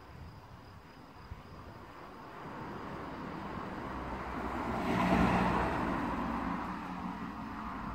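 A road vehicle passing, its engine and tyre noise rising, loudest about five seconds in, then fading.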